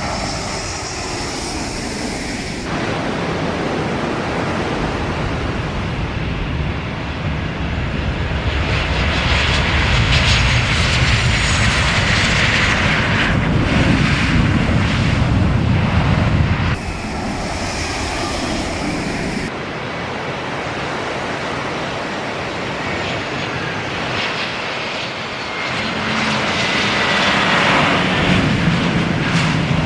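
Twin-engine turbofan jet airliners on the runway, a Boeing 737 and then an Airbus A320, their engines loud and continuous with a rising whine in the middle. The sound changes abruptly about 3, 17 and 20 seconds in, where the clips are cut together.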